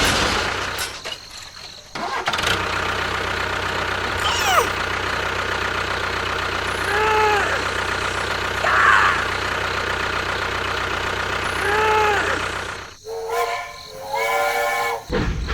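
A steady engine-like hum, with short arching tones over it a few times and a warbling tone near the end as the hum drops out.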